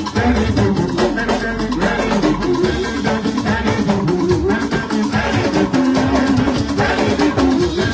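Music with percussion, drums and shaker-like rattles, and a pitched melody line.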